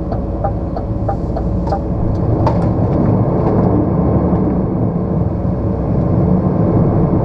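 Lorry's diesel engine running under load in the cab as it pulls away, growing a little louder about halfway through. A turn indicator ticks about three times a second over it and stops about two seconds in.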